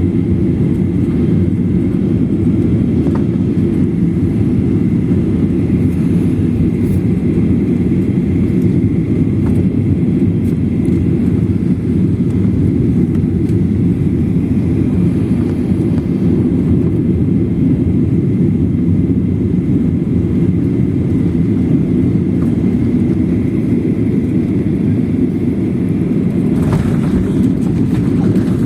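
Steady low rumble of a Boeing 737-800 heard from inside the passenger cabin: engine and airflow noise, with a faint steady high whine above it.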